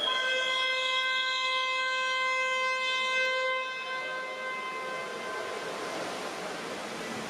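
Pool scoreboard horn sounding one long steady buzz for about three and a half seconds, then dying away in the hall's echo over steady background noise.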